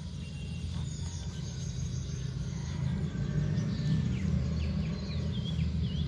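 Steady low outdoor rumble, with faint bird chirps and a short warbling call in the second half.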